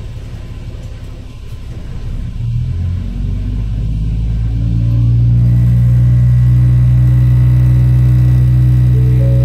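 Diesel railcar's engine revving up as the train pulls away under power. The note rises and grows louder over the first few seconds, then holds a steady, strong drone.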